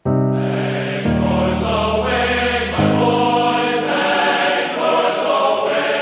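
Background music with sustained chords that starts abruptly, its low notes changing every second or two.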